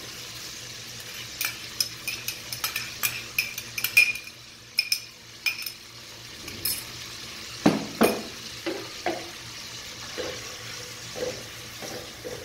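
Chopped onion sizzling in hot oil in an aluminium pot, with a metal spoon clinking and scraping against the bowl and pot as it is scraped out and stirred. A couple of louder knocks come about eight seconds in.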